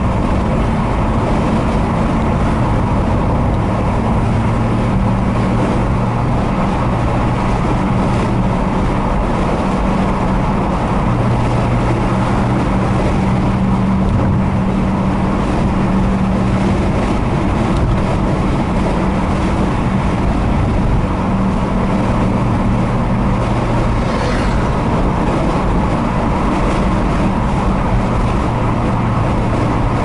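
Car driving along a highway: a steady engine hum with road and tyre noise, the engine note shifting slightly in pitch now and then.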